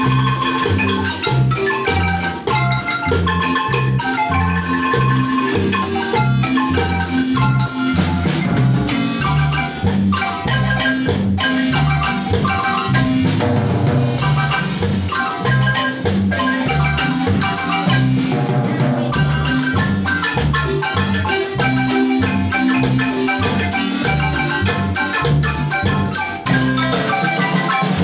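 Marimba ensemble music: several players striking the wooden bars of two marimbas together in a fast, lively tune with a running bass line, backed by a drum kit.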